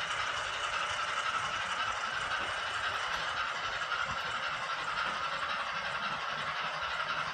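OO-gauge model train running, a steady hissing train sound from a model locomotive's sound-decoder speaker.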